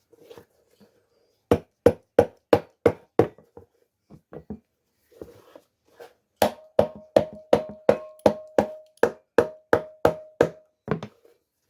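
Repeated hammer blows, about three a second: a run of six, a pause with a few light taps, then a longer run of about fourteen with a ringing tone under the blows.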